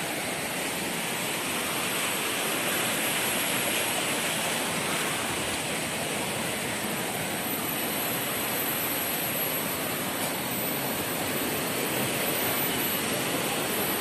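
Steady rushing of water from a waterfall and river, an even noise with no breaks.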